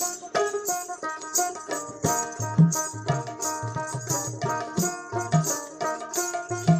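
Background music: an instrumental track with a steady, quick percussion beat of hand-drum hits under held melodic notes.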